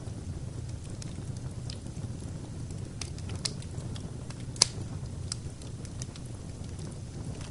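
Fire burning in a fireplace: a steady low rumble with scattered crackles and pops. The loudest, sharpest pop comes a little past the middle.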